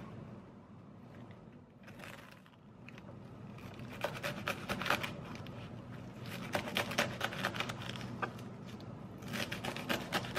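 A small fruit knife chopping fresh chamnamul stems and leaves on a wooden cutting board. Quick runs of crisp taps and crunches come in three bursts starting about four seconds in, over a steady low hum.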